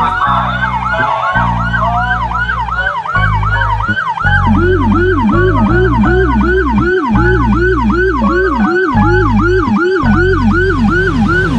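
Fire truck siren on a fast yelp, several rising whoops a second, with a second, lower yelping siren joining about four seconds in. Long, low horn blasts sound underneath, broken by short gaps.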